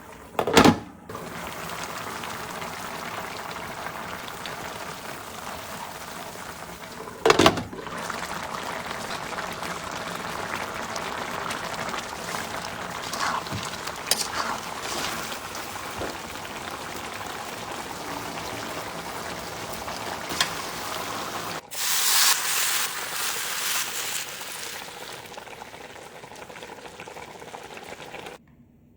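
Kitchen cooking sounds: a steady hiss of food cooking, broken by two loud clatters, with a louder stretch of hissing a little after two-thirds of the way through.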